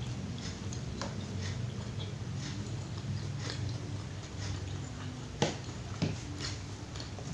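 Close-up chewing and mouth sounds of a person eating rice with pecel and fried tempe mendoan: irregular small clicks, with two louder clicks about two-thirds of the way through, over a steady low hum.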